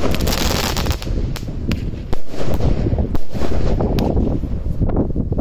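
A 16-shot consumer firework cake firing a barrage: a run of sharp, irregularly spaced bangs and pops as shots launch and break in the air.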